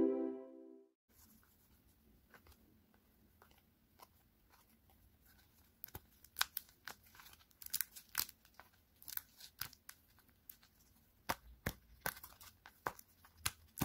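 Homemade paper pop-it toy being pressed with the fingers. The paper domes crinkle and snap in quiet, irregular crackles and clicks, starting about six seconds in.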